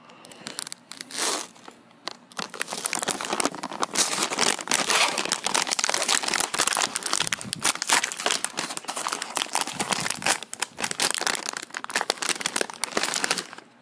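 Roasted seaweed snack pack's plastic wrapper crinkling as it is handled and torn open: a dense run of crackles starting about two seconds in and stopping just before the end.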